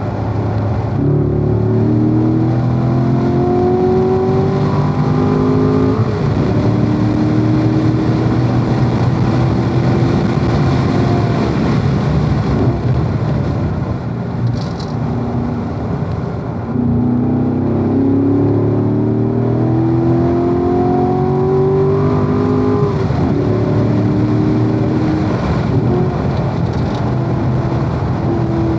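Corvette V8 engine under hard acceleration on a race track, its pitch climbing and dropping at upshifts about six seconds in and again near the two-thirds mark. In between it falls away through a slower stretch, then pulls up through the revs again, with steady wind and tyre noise underneath.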